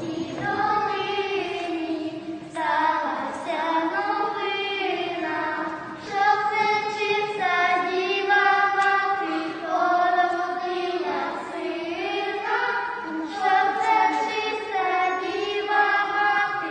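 A group of children and young people singing a Ukrainian Christmas carol together in a chapel, a melody of held notes that runs on through every line.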